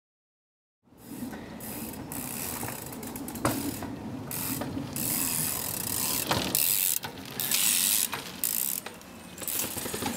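Bicycle freewheel hub ratcheting as the bike rolls and the pedals are worked, mixed with tyre noise on concrete. It starts about a second in, with a couple of sharp knocks from the bike.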